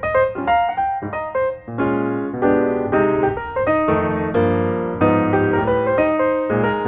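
Background piano music, chords with a moving melody and bass line.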